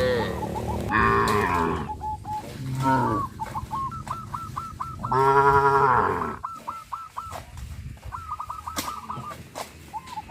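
Cattle mooing several times, the loudest and longest moo about five seconds in. Between the moos there are runs of quick, high, repeated chirps from a bird.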